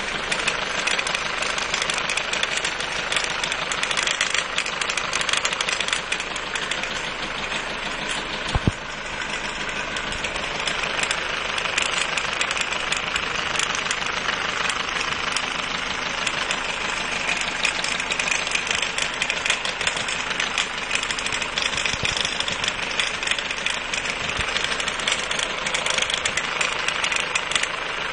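Mercedes 190D 2.0 four-cylinder diesel engine running steadily with a continuous clattering rattle, which the owner puts down to a faulty timing chain. One sharp knock stands out about nine seconds in.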